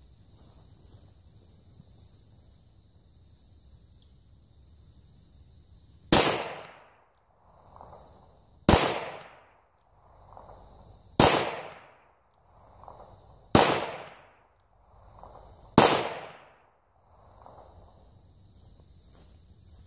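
Five shots from a Rossi 971 .357 Magnum revolver, about two and a half seconds apart, firing handloads of 4.4 grains of Clay Dot shotgun powder under a 126-grain Lyman cone bullet. Crickets chirp steadily in the background, falling silent briefly after each shot.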